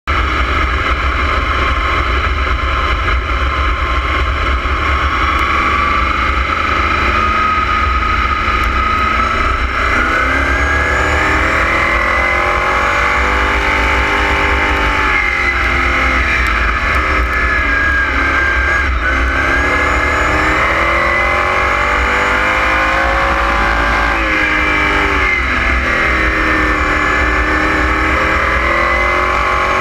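Sprint car engine at racing speed, heard on board the car, its pitch climbing and dropping again every few seconds lap after lap, over a constant low rumble.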